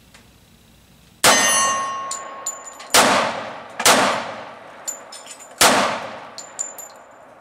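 Four shots from a Llama Minimax .45 ACP pistol at an uneven pace. The first comes about a second in and rings on after it, and lighter metallic tinks fall between the shots. The pistol is cycling and feeding properly, freshly oiled after being bone dry.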